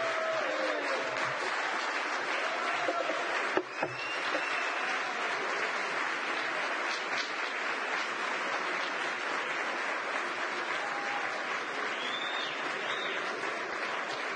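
Large audience applauding steadily, with a brief dip in the clapping about three and a half seconds in.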